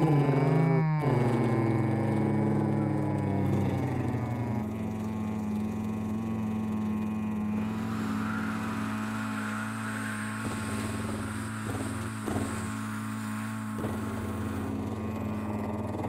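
Engine sound effect of a cartoon concrete mixer truck: a steady droning hum as it drives, its pitch stepping up about four seconds in. A short sliding, call-like tone fades out in the first second.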